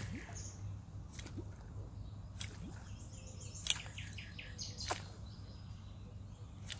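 A homemade resin popper lure jerked across a pond's surface, giving five faint sharp pops about one a second that stop about five seconds in. Small birds chirp in between.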